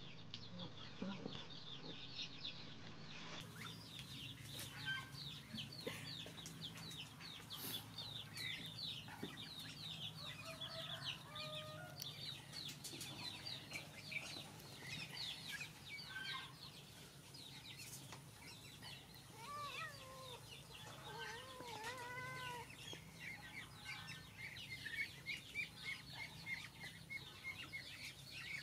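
Chickens clucking in the background, over a dense, fast chatter of short high chirps, with a few lower rising-and-falling calls about two-thirds of the way in.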